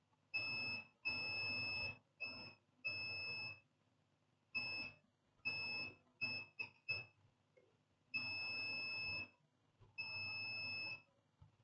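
A multimeter's continuity buzzer beeps in about ten on-off bursts of one steady high tone, some brief chirps and some about a second long, as the probes touch a point on a laptop motherboard. The beep shows near-zero resistance: the short circuit is still there.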